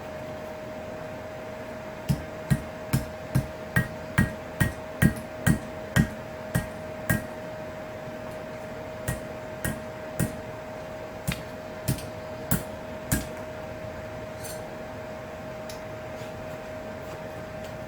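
Hand hammer striking a steel knife blade on an anvil to straighten it at low heat: a run of about a dozen blows at roughly two a second, then after a short pause a slower, scattered handful. A steady hum runs underneath.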